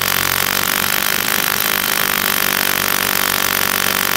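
Corded electric hammer drill running steadily as it bores a hole into a concrete roof slab.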